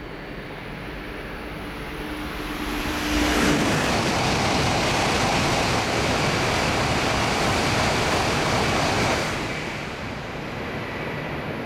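Coupled E2 and E3 Shinkansen trains passing through a station at very high speed without stopping. A rising hum grows as the train nears. About three seconds in it breaks into a sudden loud rush that holds for about six seconds, then falls away as the train recedes.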